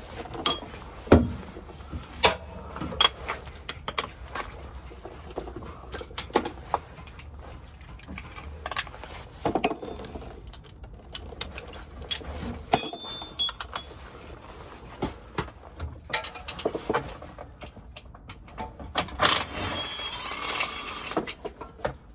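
Hand tools clinking and knocking against metal on the car's underside while a GM 4L60E transmission is being unbolted for removal, irregular sharp clicks throughout. About halfway through there is a brief high metallic ring, like a tool or part being knocked.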